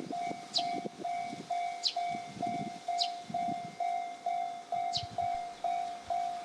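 Japanese level crossing's electronic warning bell ringing at about two strokes a second, with a higher falling chirp about once a second. An uneven low rumble runs underneath.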